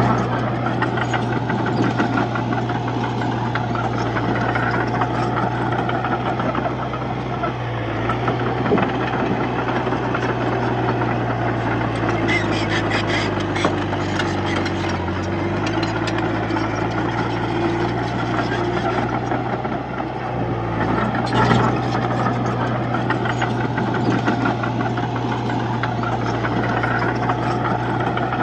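Komatsu D31P bulldozer's diesel engine running steadily at a constant pitch. There is a stretch of rapid metallic clicking about halfway through and a single sharp knock a little past two-thirds of the way.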